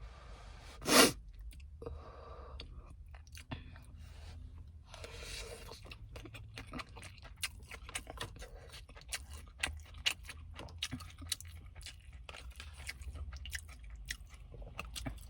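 Close-miked chewing of a mouthful of kimchi bacon fried rice, with many fine, irregular wet clicks and smacks of the mouth. There is one loud, sharp breath about a second in.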